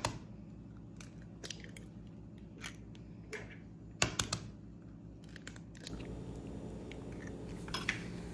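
Eggs being cracked open and dropped into a glass bowl: a sharp shell crack at the start and another about four seconds in, with small clicks of shell between.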